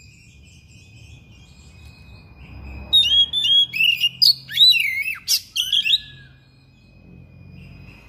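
Oriental magpie-robin singing a loud burst of rapid, varied whistled phrases with quick up-and-down slides, lasting about three seconds in the middle. A thin steady high tone runs underneath.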